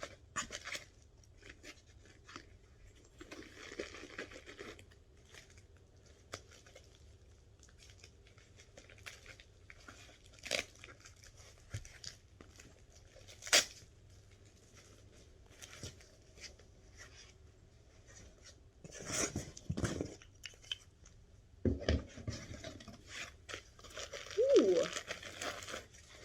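Packing material being rustled and torn open by hand, with scattered clicks and knocks as items are handled. The tearing and rustling is loudest in a stretch near the end.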